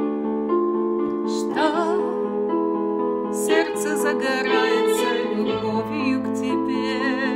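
A woman singing a Russian-language Christian worship song with vibrato into a microphone, over sustained keyboard accompaniment; a low bass line comes in about five and a half seconds in.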